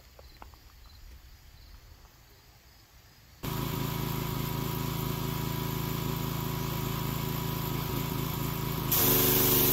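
Faint crickets, then a gas-engine pressure washer cuts in suddenly about three and a half seconds in and runs steadily. About nine seconds in the wand is triggered: a loud hissing water jet joins in and the engine note changes under the load.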